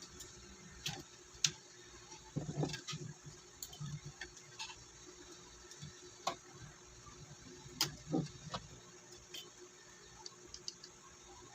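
Light clicks and soft knocks at irregular intervals as a ring light and its parts are handled, with a faint steady hum behind them.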